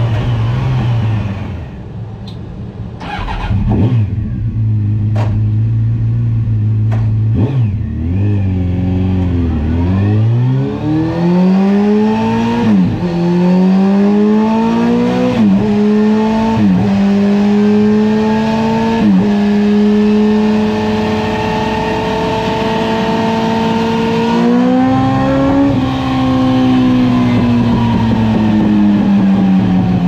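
Honda CBR900RR's 918 cc inline-four engine running on a dyno, first at a low steady pitch with a few sharp clicks, then accelerating with three sudden drops in pitch as it shifts up through the gears. It holds a steady speed, rises briefly, then slowly winds down.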